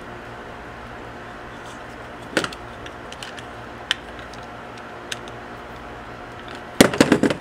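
Scattered small clicks and taps of a replacement extension-cord plug and its wires being handled while it is wired, ending in a quick burst of louder clicks and clatter near the end.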